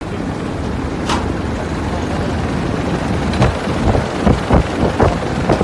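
Steady rushing noise with a low rumble, joined from about three and a half seconds in by irregular gusts of wind buffeting the microphone.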